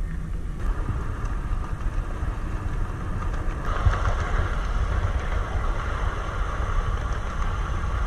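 A 7.5-inch gauge ride-on train running along its track with a steady low rumble. A rushing rolling noise joins in about four seconds in.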